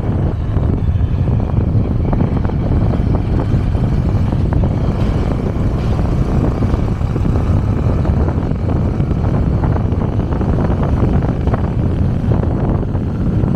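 Riding a motorcycle at speed: steady low wind rumble buffeting the camera microphone, mixed with engine and road noise.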